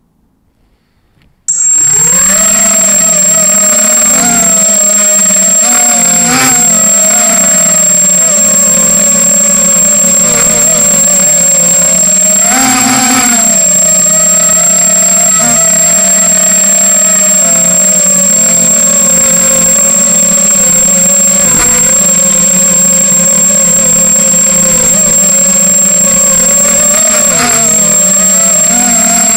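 Electric motors and propellers of a 250-size FPV racing quadcopter buzzing in flight, the pitch wavering slightly with throttle, with a thin steady high tone over it. The sound starts suddenly about a second and a half in.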